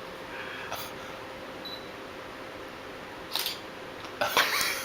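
Camera shutter sounds as photos are taken: short clicks about a second in and again past three seconds, then a louder, longer burst of noise near the end, over a faint steady hum.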